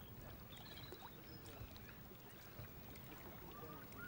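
Near silence: faint shoreline ambience of gently moving sea water, with a bird giving a run of short chirping calls near the end.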